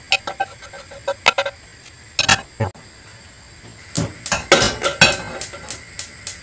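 Cookware knocking and scraping: a few scattered knocks as a frying pan is emptied of diced spam and carrots into a plastic tub. About four seconds in comes a quick run of clinks and knocks, several a second, as pots are handled on the gas hob's metal grates.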